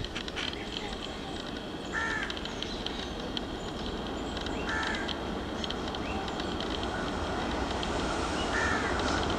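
A crow cawing three times, a few seconds apart, over the low rumble of an ALCO WDM 3A diesel locomotive that grows slowly louder as the train approaches.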